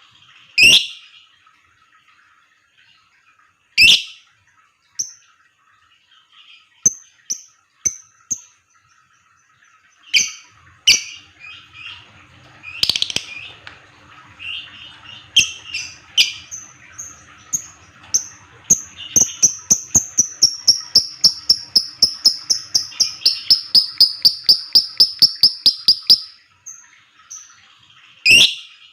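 Lovebird calling: sharp, shrill single chirps spaced a few seconds apart, then a long rapid run of ticking chirps, about four or five a second for some seven seconds. This is the dense 'ngetik' call that keepers play to set other lovebirds chattering.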